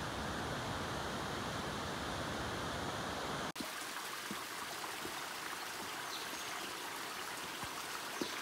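A steady rushing noise that changes abruptly about three and a half seconds in to the lighter, brighter sound of a small forest stream running over rocks, with a few faint knocks.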